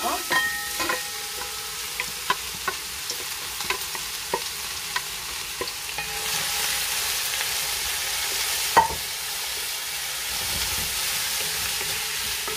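Chopped onion sizzling in hot oil in a large metal pot as it is stirred with a wooden spatula, with scattered taps and scrapes of the spatula on the metal. A brief metallic ring comes in the first second, the sizzle grows louder about six seconds in, and there is one louder knock near nine seconds.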